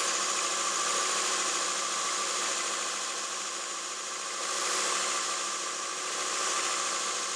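Bench belt grinder running with a steel golf wedge pressed against its abrasive belt, grinding and blending the wedge's sole into a C grind with a steady rasping hiss. The contact eases briefly near the middle and is pressed back in, the sound swelling again.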